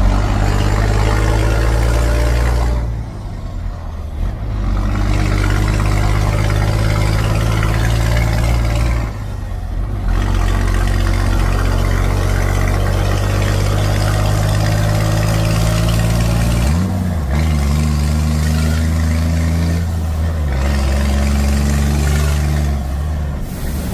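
Heavy truck's 380-horsepower diesel engine rumbling loudly under load, the engine note dipping and resetting several times as it changes gear.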